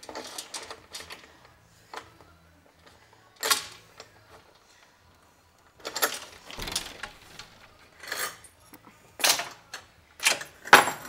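Irregular metallic clanking and rattling in several short bouts with pauses between, as a fastening is worked loose by hand.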